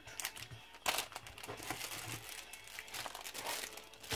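Plastic packaging crinkling and rustling as it is handled, with a sharper crackle about a second in.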